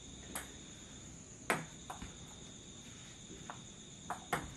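Crickets trilling steadily, with a few short sharp clicks of a celluloid table-tennis ball bouncing, the loudest about a second and a half in and two more close together near the end.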